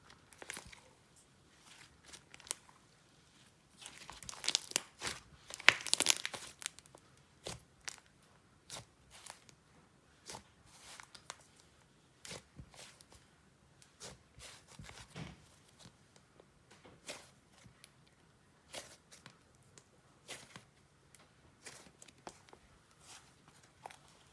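Soft, stretchy icing-and-clay slime being stretched and squished by hand: scattered sticky pops and crackles, busiest from about four to six and a half seconds in.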